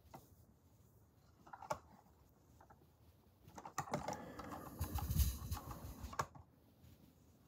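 Handling noise from a bamboo digital kitchen scale. A light click comes near the start and a sharper click shortly before two seconds in, as its button is pressed. About three and a half seconds in, a couple of seconds of rustling and light knocks follow as the scale is moved and set down, ending with a click.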